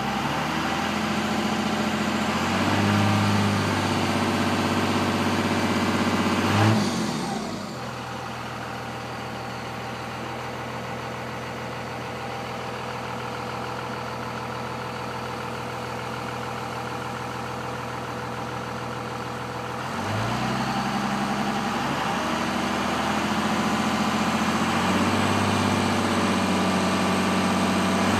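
Dodge Ram's Cummins 5.9-litre inline-six turbodiesel revved from inside the cab: held at raised rpm with a short peak, dropping back to a steady idle for about twelve seconds, then revved up again near the end.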